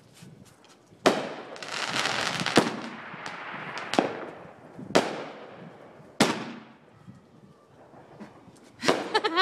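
Fireworks and firecrackers going off: a string of sharp bangs roughly a second or so apart, each dying away in an echo, with a couple of seconds of dense crackling after the first bang and a quick run of pops near the end.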